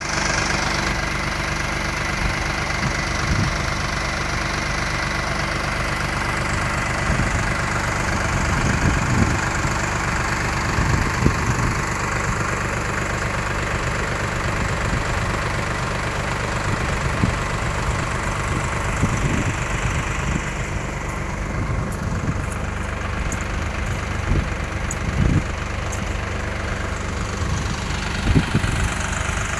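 Tractor engine running steadily at a constant speed, driving the pump that draws dirty water out of a pond.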